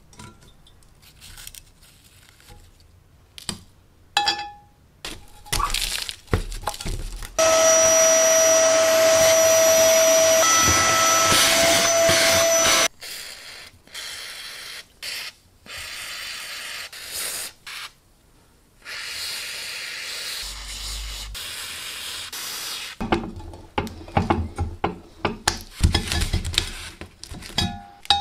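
Small scrapes and clicks of a metal pick on rusty cast iron, then an aerosol can spraying through a straw: a loud steady hiss with a thin whistle for about five seconds, and later a second, quieter spray. Near the end comes a fast run of sharp metallic taps, a punch being struck against the iron's rusted edge.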